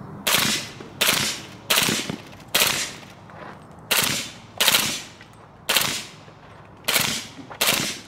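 Suppressed SIG MCX 300 Blackout rifle firing nine reports in quick succession, mostly about 0.7 s apart, with a longer pause around the middle.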